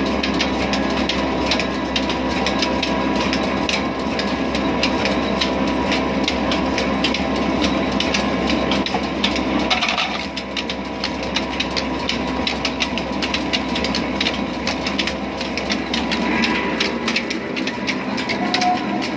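Old diesel engine running steadily, driving a flour mill through flat belts and pulleys on a line shaft, with a rapid, continuous clatter from the belts and machinery. The low rumble drops about halfway through.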